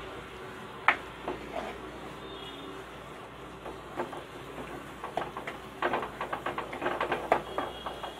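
Wooden spatula stirring and scraping cooked spinach in an unglazed clay pot, knocking against the pot. One sharp knock comes about a second in, and a quick run of taps comes near the end.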